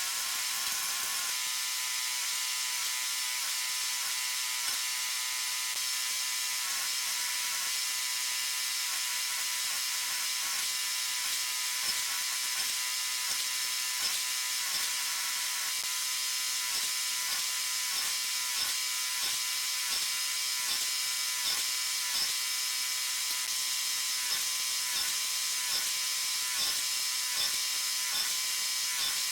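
Forge running with a steady hiss and hum. Light irregular ticks and taps run under it and grow more frequent about a third of the way in.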